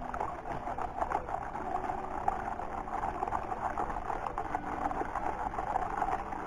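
Water sloshing and splashing in a plastic gold pan as black sand concentrate is shaken and swirled under water in a tub. The sloshing is a continuous irregular swish, with a few held notes of background music underneath.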